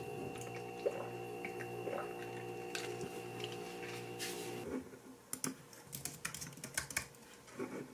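A steady hum of several tones with a few light clicks stops about five seconds in. After that comes typing on a slim computer keyboard: quick, irregular key clicks.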